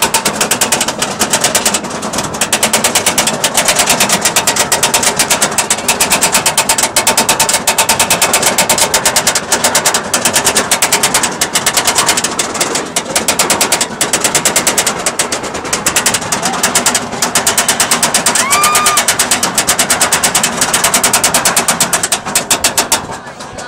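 Roller coaster lift-hill chain and anti-rollback ratchet of Goliath's steel hyper coaster clacking rapidly and evenly as the train is hauled up the lift hill. The clacking stops near the end as the train crests the hill.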